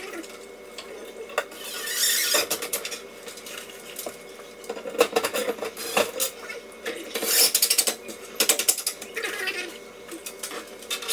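Rapid ratcheting clicks in several short bursts, from a ratcheting hand tool being worked while a range hood insert is fastened in place.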